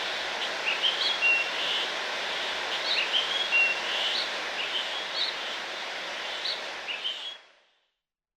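Birds chirping: short bright chirps and whistles repeating every second or two over a steady background hiss, fading out a little after seven seconds into silence.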